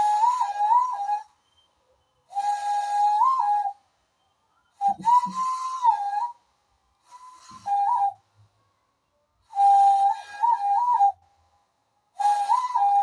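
Cupped-hand whistle blown through the gap between the thumbs to imitate a conch shell (shankh): six breathy blasts, each about a second long. Each blast is one steady tone that jumps briefly up in pitch once to three times.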